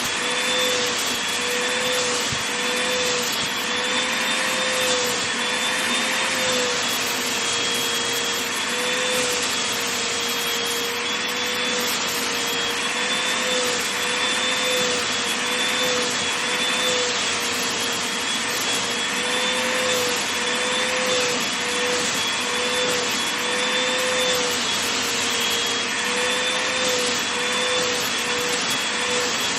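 Vacuum cleaner running steadily over fabric blankets, a constant motor whine with a slight wavering in pitch over the rushing air noise.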